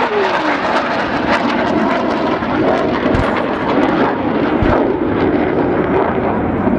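Jet aircraft flying past with a steady rushing engine noise, its pitch falling as it goes by in the first half second, and two dull booms from ground pyrotechnic explosions about three and four and a half seconds in.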